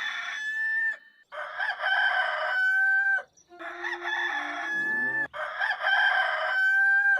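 Rooster crowing over and over: the end of one crow, then three more crows in quick succession, each ending in a long held note.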